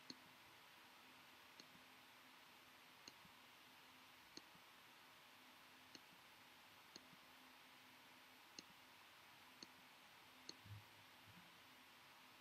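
Faint computer mouse clicks, about ten of them spaced roughly a second apart, placing points along a cutting path in an image editor, over a faint steady hum.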